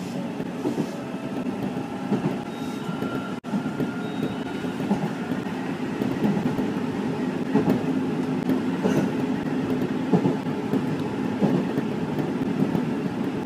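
Nankai electric commuter train heard from its driver's cab, running at about 55 to 67 km/h: a steady rumble of wheels on rail, with occasional short knocks. The sound drops out for an instant about three and a half seconds in.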